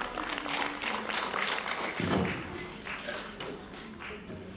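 Audience applauding, a dense patter of clapping that fades out after about three and a half seconds, with a single low thud about two seconds in.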